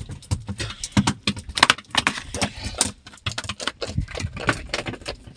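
Freshly caught fish flapping and thrashing on a wet boat deck: an irregular run of slaps, splatters and knocks, with a few louder slaps among them.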